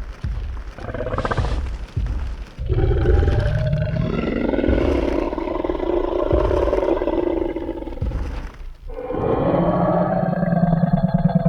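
Tyrannosaurus rex roar sound effect: a few heavy stomping footsteps in the first couple of seconds, then a long, deep roar lasting about six seconds, a short break, and a second roar starting about nine seconds in.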